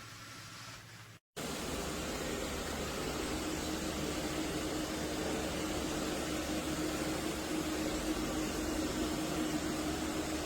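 A steady rushing machine noise with a low hum, coming in abruptly about a second in after a brief cut to silence.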